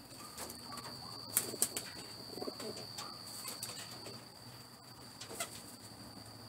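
A racing pigeon held down in a bucket of medicated, soapy water for a force bath, with water sloshing and a few sharp splashes and knocks, the loudest two about one and a half seconds in. Pigeons coo in the loft, and a steady high-pitched whine runs underneath.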